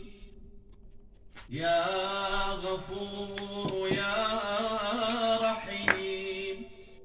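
A man's voice chanting a prayer in long, melodic held notes, starting about a second and a half in and fading near the end. A few short clicks sound over it.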